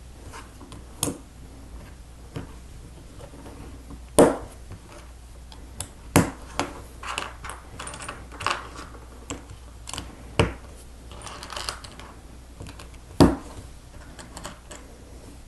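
Plastic Lego bricks clicking and snapping together as they are pressed on by hand, with a handful of sharp snaps spread through and softer rattling of pieces between them.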